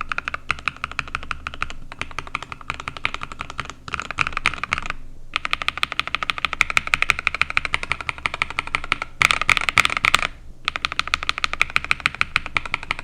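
Typing on a mechanical keyboard fitted with Akko CS Vintage White linear switches on a 35-gram spring: fast, dense keystroke clacks in several takes with brief pauses between them, one louder run near the ten-second mark.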